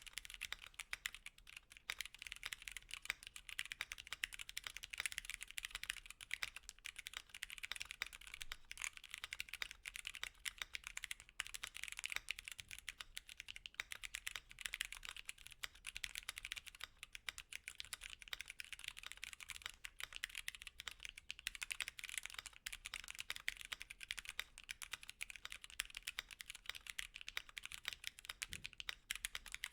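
Fast continuous typing on a mechanical keyboard with stock Gateron Brown tactile switches and PBT keycaps: a dense, even stream of key clicks and clacks.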